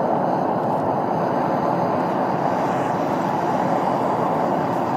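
Gas burner of a metal-melting furnace running at full flame, a loud, steady rushing noise, while aluminium scrap melts in the crucible.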